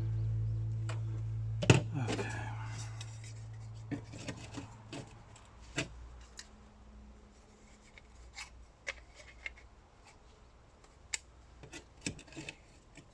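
A music bed fades out over the first few seconds. After it come scattered light clicks and taps of small plastic parts and tools being handled on a workbench.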